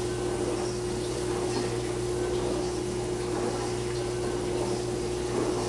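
Stovetop pressure cooker at pressure over the heat: a steady hiss and bubbling with a constant humming tone underneath.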